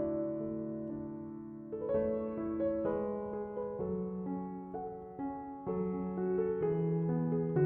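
Background piano music: slow, sustained chords and notes changing about once a second.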